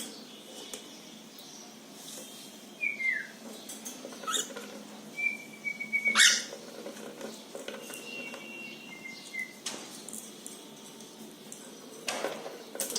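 Cockatiels giving a few short whistled calls, one falling in pitch and others held steady, among several sharp clicks and scrapes.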